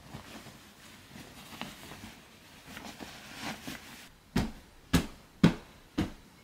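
Bedding rustling as a duvet and pillows are smoothed and arranged, then four sharp thumps about half a second apart.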